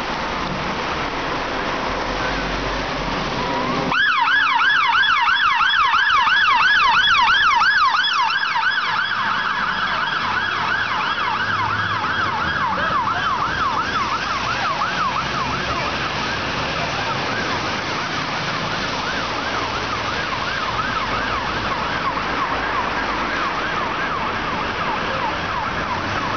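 Fire engine turning out under blue lights: its siren switches on about four seconds in, a yelp sweeping quickly up and down several times a second. It is loudest for the first few seconds, then a little quieter as the appliance pulls away. Before the siren comes on, the vehicle's engine and road noise are heard.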